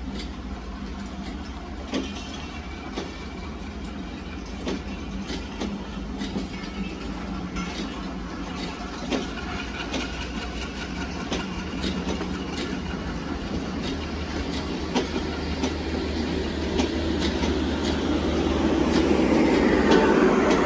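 Broad-gauge passenger coaches rolling past on jointed track, their wheels clicking over the rail joints over a steady rumble. The sound grows louder near the end as the coaches pass close by.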